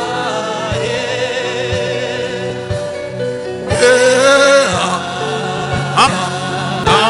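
Gospel worship music: voices singing long, wavering vowel sounds over a steady backing, with a louder sung phrase about four seconds in.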